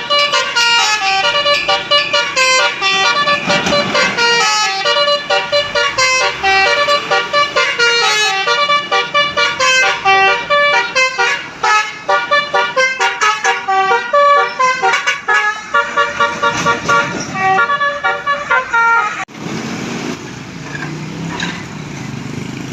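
Telolet basuri musical horn playing a rapid multi-note melody, loud and continuous, which cuts off suddenly near the end. Vehicle engine noise remains after it.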